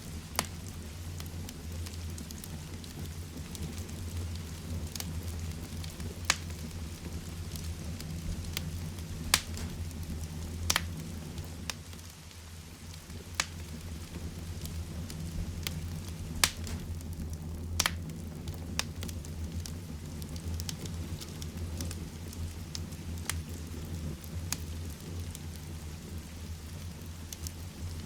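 Heavy rain with a wood fire crackling in a fireplace: a steady low rumbling hiss, broken every two or three seconds by sharp pops from the burning wood.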